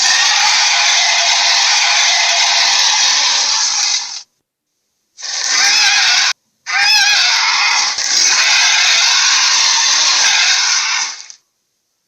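Gorilla vocalisation sound effect: harsh, noisy calls in three stretches. The first lasts about four seconds, a short one follows about five seconds in, and a longer one comes about a second and a half after that, with gaps of dead silence between them.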